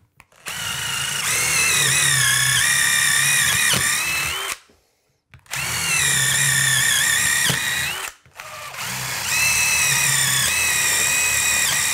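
Cordless drill with a long bit boring through a couple of inches of wood in a wall. It runs in three long spells with short pauses between, and its motor whine wavers in pitch as it cuts.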